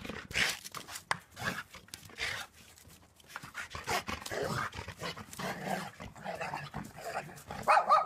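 A dog making short, irregular vocal sounds while playing, with a louder one near the end.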